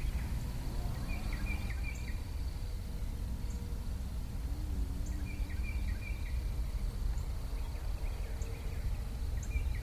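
Outdoor ambience by a pond: a steady high insect trill, a bird calling in short runs of chirps about three times, and a low steady rumble underneath.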